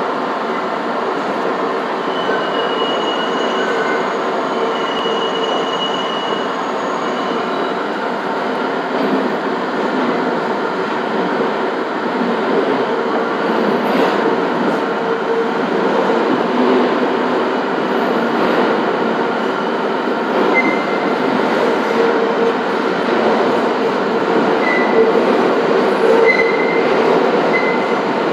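R62A subway car running slowly through a tight curve, its wheels rumbling on the rails. High wheel squeal comes and goes, most clearly early on and again near the end.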